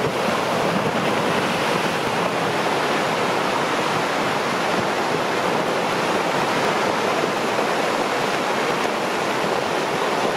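Rock and snow debris cascading down a mountainside: a steady rushing noise with no separate impacts standing out.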